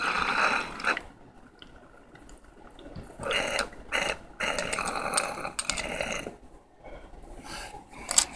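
Water bubbling through a glass dab rig as it is pulled on in two draws: a short one of about a second, then a longer one of about three seconds, starting about three seconds in.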